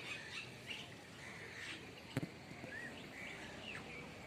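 Scattered short bird chirps and calls over a steady background hiss, with one sharp click about two seconds in.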